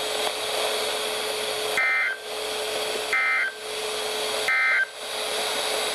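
NOAA Weather Radio SAME digital code: three short bursts of two-tone data warble, about a third of a second each and a little over a second apart, over steady radio hiss and a faint hum. The short length marks them as the end-of-message code that closes a broadcast warning.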